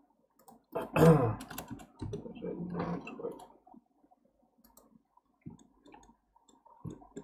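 A man's brief wordless vocal sounds, a mumble or hum, in the first few seconds, then scattered light clicks of a computer mouse.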